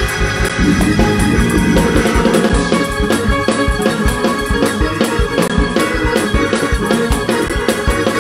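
Organ playing fast praise-break music over a driving beat of low thumps, about four a second.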